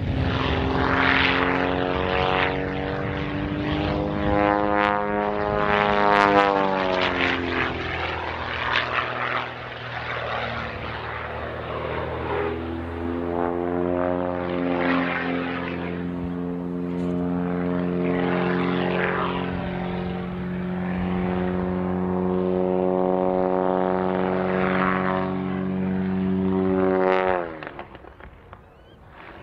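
Pitts Special aerobatic biplane flying overhead, its piston engine and propeller droning with a pitch that rises and falls through the manoeuvres. Near the end the engine note sweeps down sharply and nearly fades out.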